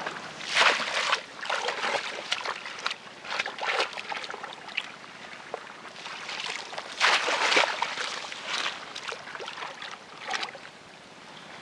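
Shallow muddy water splashing and sloshing as woven bamboo fish traps are set down and pressed into it, in irregular bursts, loudest about half a second in and again about seven seconds in.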